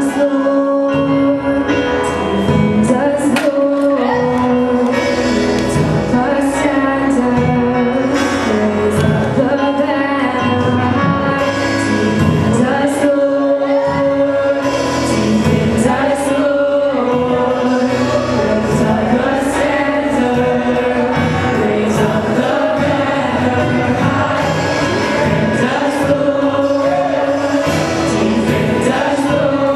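Mixed church choir of men and women singing a gospel song into microphones, with a woman's lead voice over the backing singers and instrumental accompaniment with percussion.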